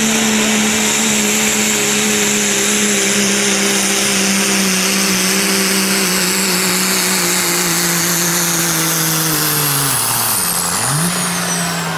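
Turbocharged diesel pickup truck at full throttle dragging a weight-transfer pulling sled. Its engine note is steady and sinks slowly in pitch as the sled's load builds. About ten seconds in the revs drop sharply and pick up again briefly, while a high whistle winds down as the pull ends.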